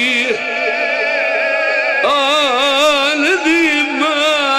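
A man's voice chanting a mournful Punjabi lament (masaib) into a microphone, holding long notes that waver up and down in pitch, with a short break about two seconds in before the next held line.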